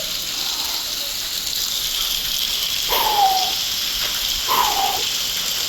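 Heavy rain pouring down in a steady hiss. Twice, about three seconds and four and a half seconds in, a short falling hoot sounds over it.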